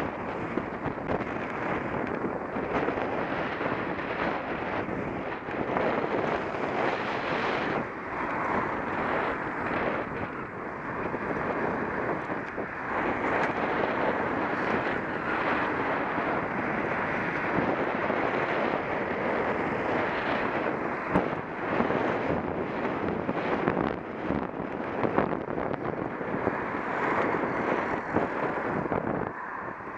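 Steady rushing wind noise on a bicycle-mounted camera's microphone while riding along a path, with road traffic running underneath.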